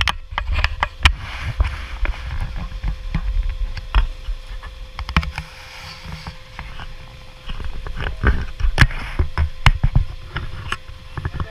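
Fishing-harbour ambience: a gusting low rumble of wind on the microphone, with scattered sharp knocks and clanks and a faint steady hum underneath.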